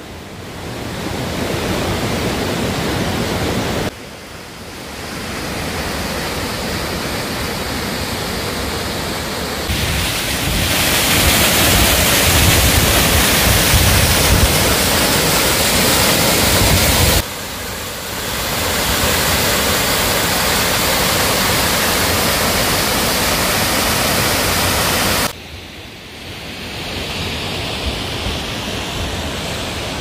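Steady rush of falling water from a waterfall and a small cascade over boulders. The level jumps abruptly up or down four times, and it is loudest in the middle stretch.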